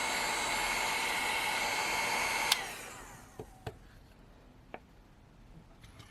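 Hot-air blower running with a steady whine, heating the phone's adhesive. It switches off with a click about two and a half seconds in and spins down, followed by a few faint taps.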